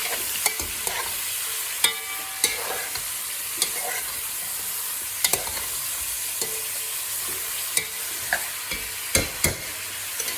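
Two baby chickens frying in oil in a pan with a steady sizzle, while a utensil clicks and knocks against the pan as they are stirred. The knocks come irregularly, and the loudest pair falls near the end.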